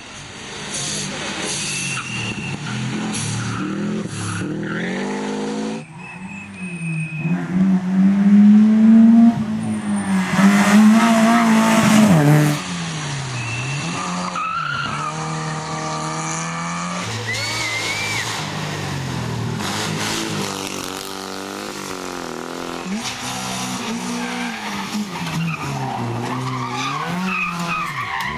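Rally cars passing one after another on a stage. Their engines rev hard and drop back through gear changes, with tyres squealing in the corners. The loudest pass comes about 8 to 12 seconds in.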